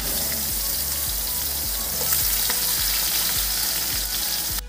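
Sliced onions sizzling in hot oil with nigella seeds and dried red chillies in a frying pan, a dense steady crackle that cuts off abruptly near the end. A soft, evenly pulsing bass beat of background music runs underneath.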